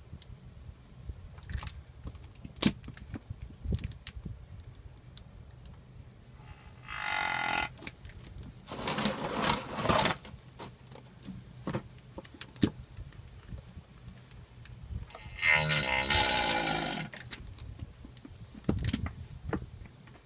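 Hand work at a pickup's rear differential: scattered small clicks and metal knocks, with three bursts of rushing noise about 7, 9 and 16 seconds in.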